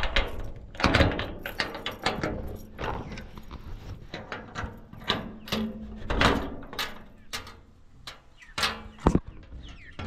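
A run of irregular knocks and clatters, the loudest about a second in, near six seconds and just before nine seconds, with chickens clucking among them.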